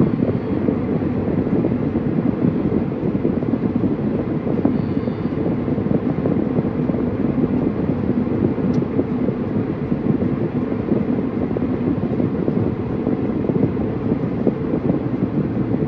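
Steady road and tyre noise from a car driving at freeway speed, heard from inside the cabin: a low, even rumble that does not change.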